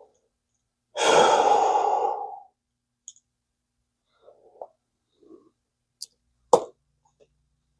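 A man's long sigh, followed by a few small clicks and taps of tiny parts and tools. One sharp click near the end is the loudest.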